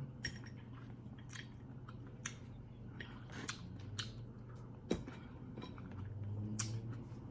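A person chewing and biting through grapes, olives and tomatoes: wet mouth clicks and squishing at irregular moments.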